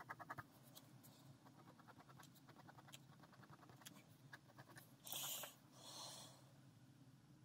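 Ballpoint pen scratching on paper in quick, even back-and-forth hatching strokes, with short pauses between runs. About five seconds in come two louder brushing swishes, one after the other.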